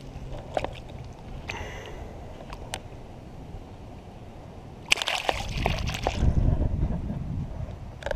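Water splashing and sloshing as a peacock bass held in the shallows is released and kicks away, starting about five seconds in and lasting a couple of seconds; a few light clicks before it.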